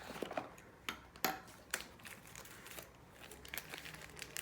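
Light handling sounds as a tablet and its packaging are picked up and moved: about six scattered sharp clicks and taps with a faint rustle between them.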